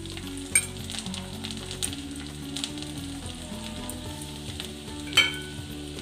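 Chopped garlic frying in hot oil in a pan, a steady sizzle for a tempering. Two sharp metallic clinks cut through it, about half a second in and near the end.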